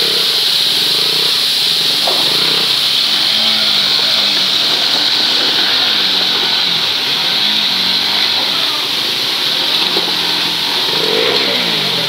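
A motorcycle engine revving up and falling back several times as the bike is ridden through shallow water, over the steady loud rush of a waterfall.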